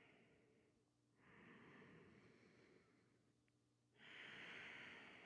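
Faint, slow breathing of a person holding a yoga stretch: soft airy breaths that swell in about a second in and again about four seconds in.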